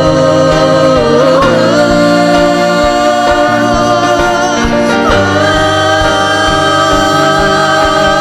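Worship music: held chords with singing, the notes sustained and changing every second or two.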